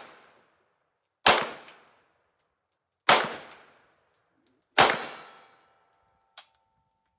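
Three pistol shots from an MPA Defender, about a second and three-quarters apart, fired at steel targets. After the third shot a struck steel plate rings with a steady tone for a couple of seconds.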